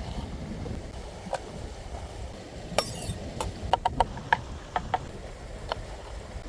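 Scattered light clicks and clinks, a quick cluster of them around the middle, over a steady low rumble.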